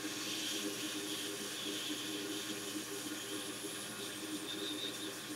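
Hot air rework station blowing a steady hiss of hot air onto the logic board, reflowing a newly placed SMD backlight fuse in flux.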